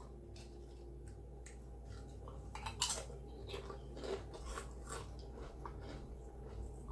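Chips being crunched and chewed: scattered small crunches and clicks, the sharpest about three seconds in.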